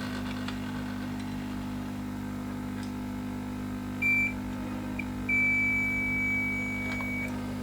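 Multimeter continuity tester beeping as its probes touch the pins on one side of a laptop-board MOSFET: a short blip, then a steady beep held about two seconds, showing the pins are joined through the same copper pad and well soldered. A steady low hum runs underneath.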